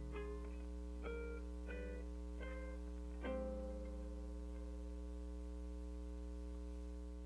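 A Gibson archtop guitar plays a short run of plucked notes and chords, then a final chord about three seconds in that is left ringing: the close of the song. A steady low hum runs underneath.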